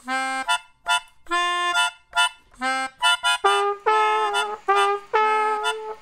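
Background cartoon music: a reedy wind instrument plays short, detached notes, then longer held notes from about three and a half seconds in.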